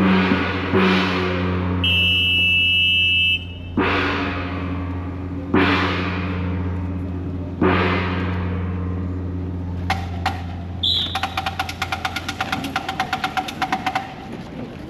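Large gong struck about every two seconds, four strokes, each ringing on with a low hum. A high whistle-like tone sounds for about a second and a half about two seconds in. Near the end comes a fast run of light strikes, about eight a second.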